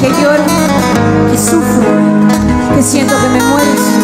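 Live acoustic band playing an instrumental passage: strummed acoustic guitars under a wavering melody line, with bass notes beneath and a bright accent about every second and a half.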